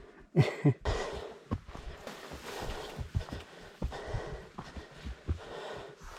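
Hikers' footsteps and irregular knocks on a rough, rocky trail, with two louder knocks under a second in.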